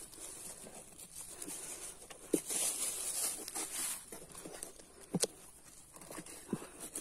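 Plastic bag crinkling and rustling as a hand shifts fish around inside a styrofoam cooler, with two short knocks, about two and five seconds in.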